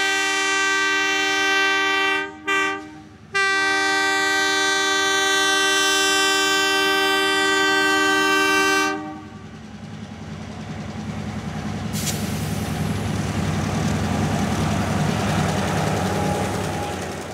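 Diesel locomotive air horn blowing a multi-note chord for about nine seconds, cut twice briefly a little past two seconds in. Then a train passes, its engine rumble and wheel noise swelling and fading, with a sharp clank about twelve seconds in.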